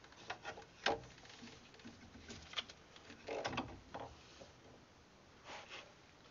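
Scattered knocks, clicks and rubbing of metal brake parts and tools being handled by hand. The loudest knock comes about a second in, with a cluster of knocks around the middle.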